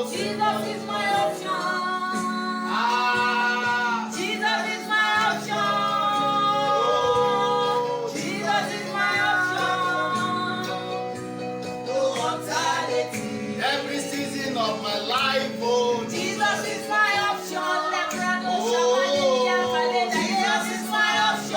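Gospel song: a woman singing long, wavering held notes over a steady sustained instrumental backing.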